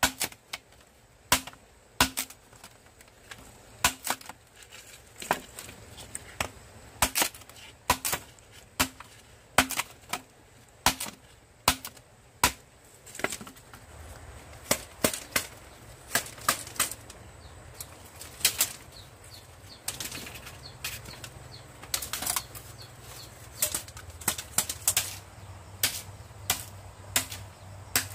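A blade chopping bamboo, with repeated sharp strikes. They come at about one and a half a second at first, then grow more irregular and bunched from about halfway, over a low steady hum.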